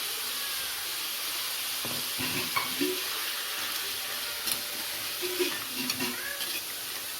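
Crab and freshly added ground masala paste sizzling in hot oil in a pan, with a spoon stirring and knocking against the pan now and then.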